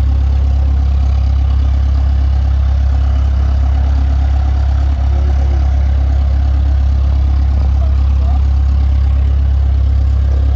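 A loud, steady low engine drone that does not change in pitch or level.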